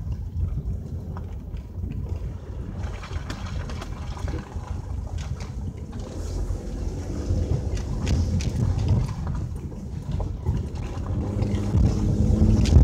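Wind buffeting the microphone over a low, continuous rumble of travel along a rough, slushy dirt lane, with scattered small knocks, growing louder toward the end.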